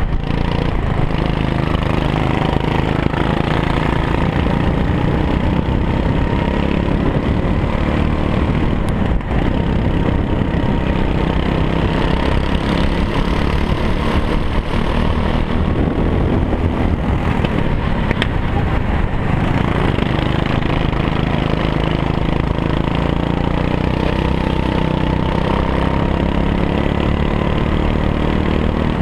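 Go-kart engine running at racing speed, heard from on board the kart; its pitch rises and falls slowly as the driver works the throttle through the corners.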